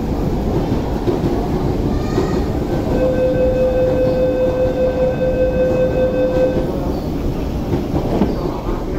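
Loud rumbling train noise from a Hyundai Rotem EMU (R-train) at the platform. About three seconds in, a steady electronic warning tone sounds for nearly four seconds as the doors close.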